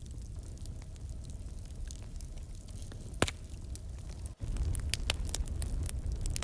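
Wood fire burning: scattered sharp crackles and pops over a low, steady rumble, the loudest pop about three seconds in. A little after four seconds the sound cuts out for an instant, then returns with a louder rumble and crackles coming more often.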